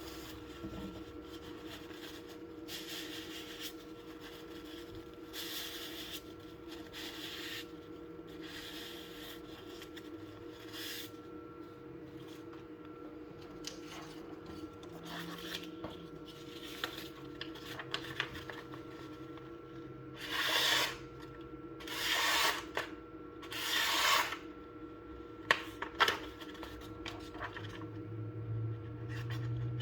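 Repeated rubbing and scraping strokes from the knife and its packaging being handled, with three louder strokes about two-thirds of the way through, over a steady hum.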